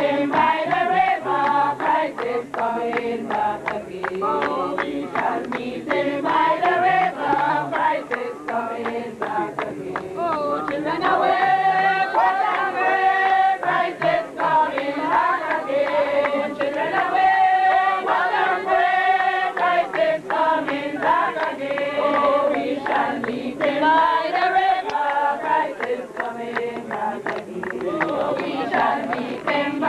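Many voices singing a hymn together, with some long held notes.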